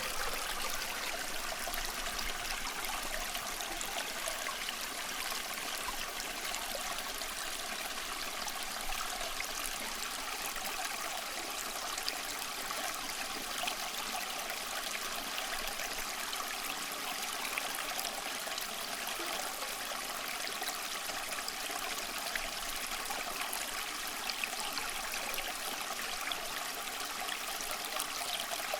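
Small stream of water flowing steadily over stones, a continuous trickling rush with small splashes and bubbling.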